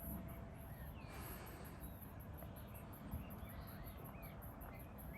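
Outdoor nature ambience: birds giving short scattered chirps, over a very high insect buzz pulsing about five times a second, with a low rumble of wind beneath.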